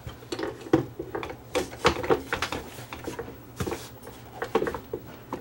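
Irregular clicks, taps and light knocks from a stereo speaker cabinet and a metal equipment case being handled and shifted against each other on a workbench.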